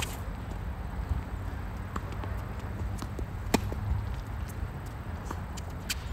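Tennis rally: sharp pops of the ball off racket strings and court, the loudest right at the start and others about three and a half and six seconds in, with fainter hits from the far end. A steady low rumble runs underneath.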